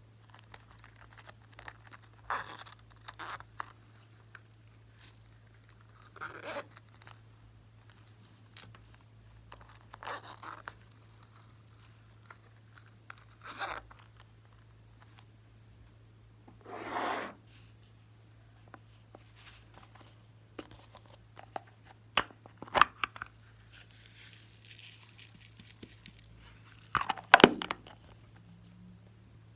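Glossy slime being stretched, pressed and folded by hand, giving irregular sticky crackling and tearing sounds, with a few sharp pops toward the end. A steady low electrical hum sits underneath.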